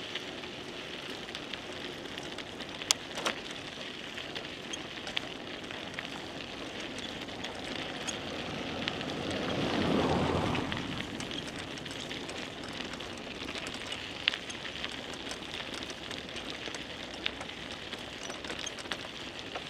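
Steady crackling hiss of a bicycle ride: tyres rolling and wind on a chest-mounted camera's microphone, with a few sharp clicks. About halfway through, a louder whoosh builds and fades over a few seconds.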